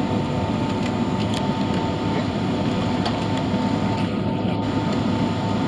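Steady cabin noise of a Boeing 767-300ER taxiing, heard from a seat over the wing: a low rumble from its Rolls-Royce RB211 engines and air systems, with a steady whine running through it.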